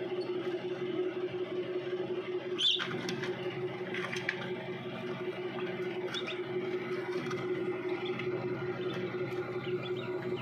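Newly hatched Brahma chicks peeping a few times, short high chirps, the clearest about three seconds in, over a steady low hum.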